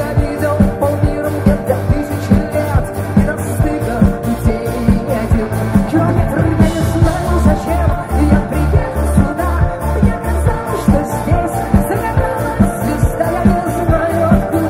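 Live rock band playing with a steady drum beat, bass and electric guitars, heard through the PA.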